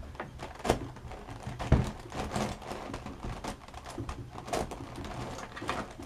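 Teraminx puzzle being turned by hand: plastic layers clicking and clacking at an uneven pace as moves are made.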